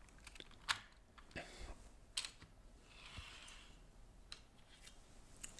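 Faint scattered plastic clicks and light handling noises as an N gauge model coach is set on a plastic re-railer and eased onto the track, about five small clicks spread across the few seconds.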